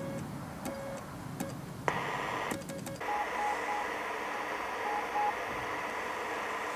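Morse code on a WWII German Torn.Fu.b1 field radio: a few short keyed tones with sharp clicks at their starts and ends. About three seconds in, the sound changes to steady receiver hiss with a few faint, short Morse tones at a higher pitch.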